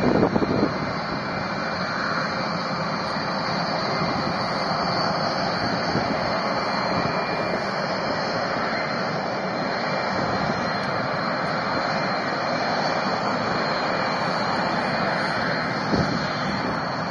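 Rockwell B-1B Lancer's four turbofan engines running at taxi power: a steady jet roar with a high whine held over it. In the first second there are some wind buffets on the microphone.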